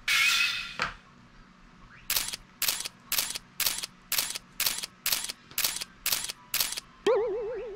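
Edited-in video sound effects: a bright sting at the start, then about ten sharp ticks, one every half second, as title characters pop up one by one. Near the end comes a loud comic tone that wobbles up and down in pitch and fades.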